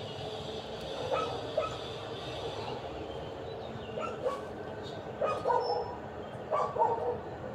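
A dog barking and yipping in short bursts, a few times early on and in quicker clusters in the second half, over a faint steady hum.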